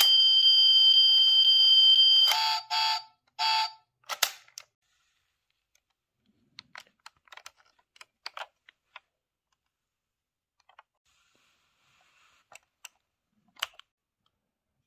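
A die-cast toy motor coach's battery sound module plays a steady, shrill electronic tone through its tiny speaker for about two seconds, then three short beeps. After that comes a scatter of small plastic clicks and taps as the coach's opening parts, such as its luggage hatches, are worked by hand.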